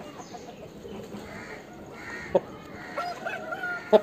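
Chickens clucking and squawking in short calls, with two sharp taps, one a little past the middle and a louder one near the end.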